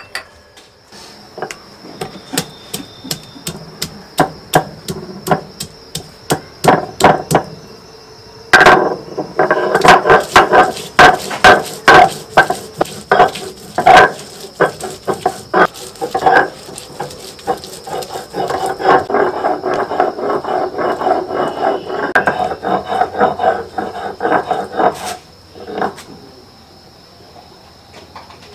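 A knife chopping on a wooden board: scattered light taps at first, then a long run of loud, quick chopping strikes from about a third of the way in, settling into a fast steady rhythm before stopping shortly before the end.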